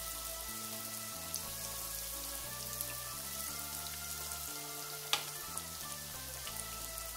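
Breaded eggplant slices sizzling and crackling in hot oil in a frying pan. One sharp click about five seconds in as the turning fork knocks the pan, with soft background music under it.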